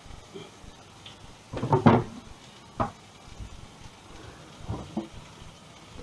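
Knocks and clatters of kitchen things being handled and put away: a loud cluster about a second and a half in, a single sharp knock near three seconds, and a few lighter knocks near five seconds.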